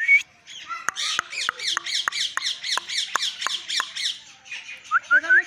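Pet parrot squawking: a short squawk, then a fast run of about a dozen harsh repeated calls, roughly three or four a second, and a few short rising chirps near the end.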